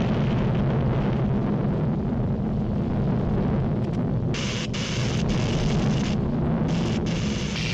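Deep, steady rumbling of an erupting volcano, a cartoon sound effect. About four seconds in, a harsh hiss of electrical sparking from the compressor's motor joins it, breaking off briefly now and then.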